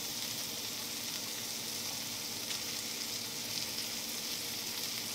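Thinly sliced Steak-umm beef and onions frying in a ridged grill pan: a steady, even sizzle.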